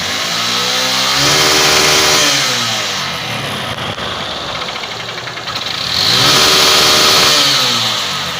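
150 cc motorcycle engine revved twice from idle, each time rising, holding about a second and dropping back, with the knock of a worn connecting rod: the knocking keeps going when revved but eases off.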